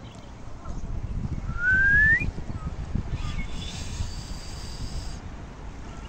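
Wind rumbling on the microphone, with one short rising whistle about a second and a half in.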